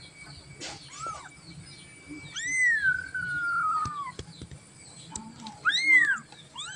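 Newborn kittens, eyes not yet open, mewing: a short cry about a second in, then a long drawn-out cry that slides down in pitch, and a loud short cry near the end.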